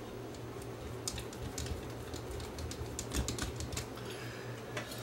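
Screwdriver driving a small mounting screw into a cassette deck's metal motor bracket: a run of light, irregular metal clicks and ticks, starting about a second in.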